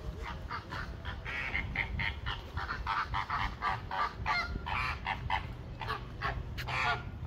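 A flock of flamingos honking: many short calls in quick succession, some overlapping.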